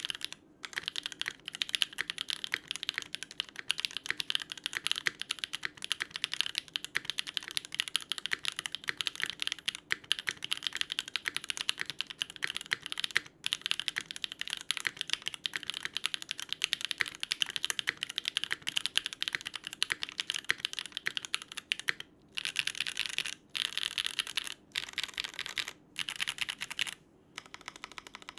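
Continuous fast typing on a Geonworks W1-AT mechanical keyboard with an FR4 plate, stock Gateron Pure Berry switches and GMK keycaps: a dense run of quick keystroke clacks, broken by a few short pauses near the end.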